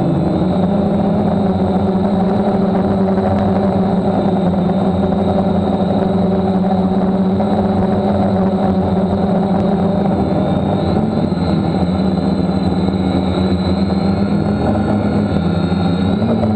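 DJI F550 hexacopter's brushless motors and propellers running in flight, a steady buzzing hum heard close up from a camera mounted on the frame.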